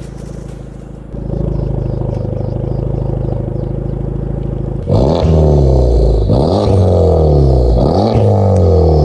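Honda Civic Type R FK8's turbocharged four-cylinder engine with a Max Racing track exhaust idling steadily, then from about five seconds in revved repeatedly, the pitch climbing and dropping with each throttle blip.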